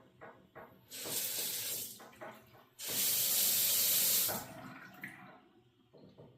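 Regular ticking, about three ticks a second, broken by two loud bursts of hissing, the second and longer one the loudest; the ticking carries on faintly between and after them.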